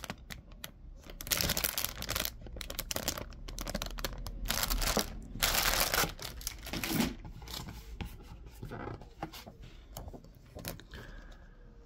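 Clear plastic bags around model-kit sprue runners crinkling and rustling as they are handled, with loud crackly bursts in the first half. Quieter, sparser rustles and clicks follow after about seven seconds.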